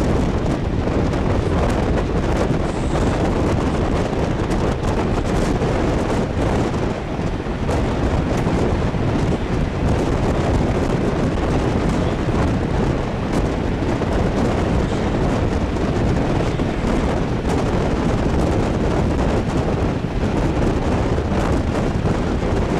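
Wind rushing and buffeting the microphone held out of a moving train's open window, over the steady rumble of the coach running along the track.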